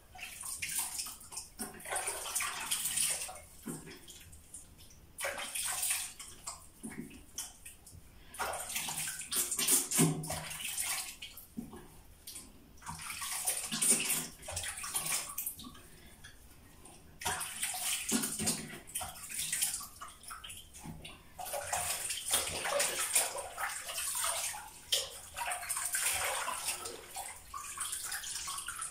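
Cold water being splashed and rinsed over a face at a sink, in repeated bursts of splashing a second or a few seconds long with short quieter pauses between.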